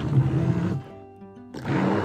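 Handheld immersion blender running through peeled oranges. It stops less than a second in and starts again about a second and a half in.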